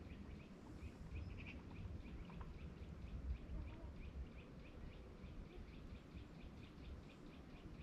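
Faint bird calling: short, high chirps repeated steadily about four times a second, over a low rumble.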